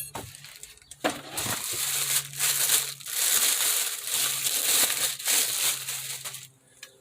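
Packaging crinkling and rustling as it is handled and pulled open, in uneven bursts for about five seconds, starting about a second in.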